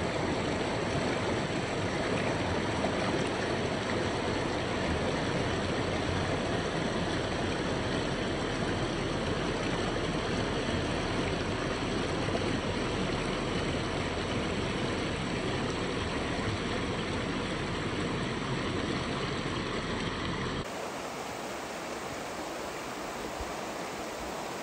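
Shallow river water rushing over rocks in small rapids, a steady rushing noise. About 20 seconds in it cuts to a quieter, thinner stretch of the same rushing water.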